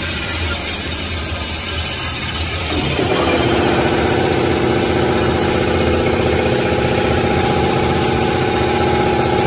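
Automatic band saw for toilet-paper and kitchen-towel logs running: a steady machine hum, joined about three seconds in by a steady whine of several tones that holds.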